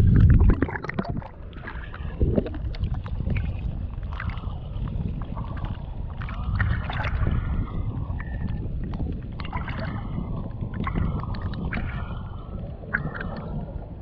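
Water sloshing and splashing around an action camera held at the surface by a swimming snorkeler, half in and half out of the water, with a steady muffled low rumble and scattered bubbly crackles. A louder splash comes right at the start.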